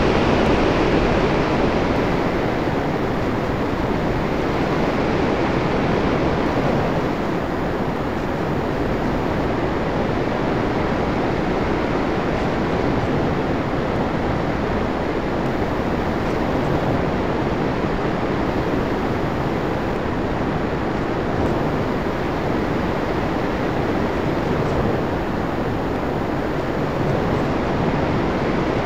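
Steady rush of air over an RC plane's onboard camera in flight, an even noise with no clear motor tone standing out.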